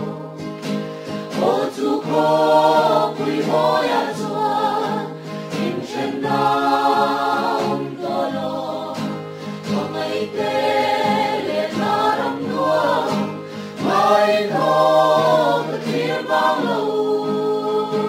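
A small group of men and women singing a Mizo song together, in held phrases with short breaks between them.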